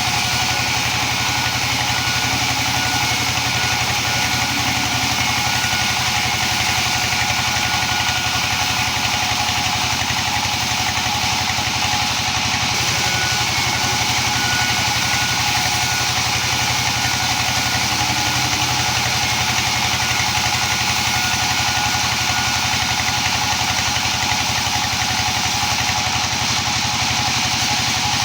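A small engine-driven machine running steadily at constant speed, with an even rapid pulsing and a steady hum.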